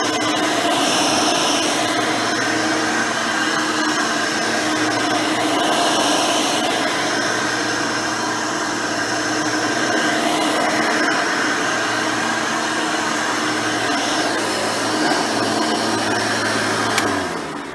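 Hoover Elite 600 upright vacuum, refitted with a modern 7-amp motor and 20-blade fan, running steadily while cleaning. Near the end a switch clicks off and the motor winds down.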